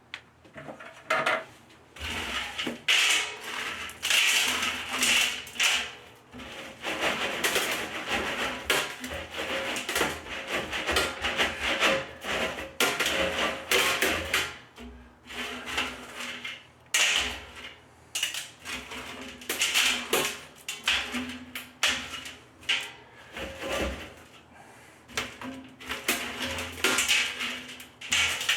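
Gravel being poured into a drain pit around a barrel, rattling and clattering in a series of loud pours a second or two long with short pauses between them.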